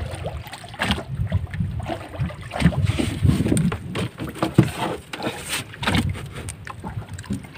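Water lapping against a wooden outrigger boat, with wind on the microphone and irregular knocks and handling noises on the boat.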